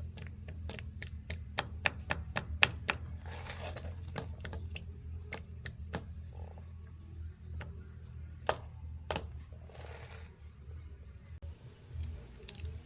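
A run of sharp, irregular clicks and taps, closely spaced in the first half and sparser later, with two louder knocks near the end, over a steady low hum.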